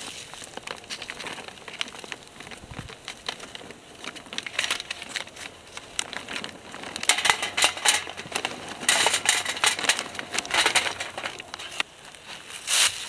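A charcoal bag rustling as it is handled, then coconut charcoal briquettes clattering into a steel chimney starter as they are poured, the rattling heaviest in the second half.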